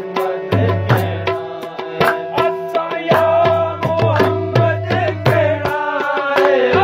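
Tabla played in a quick, steady rhythm: sharp strokes on the small drum ringing on one pitch, with deep bass notes from the larger drum. Hands clap along, and a man's singing voice comes in over the drumming about three seconds in.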